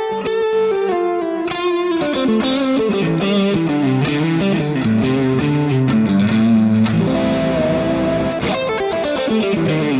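Electric guitar played through a Line 6 Helix on a lead preset modelled on an EF86-preamp amp, overdriven with delay: a single-note lead line with a quick run of picked notes at the start, a descending phrase, and a held high note about seven seconds in.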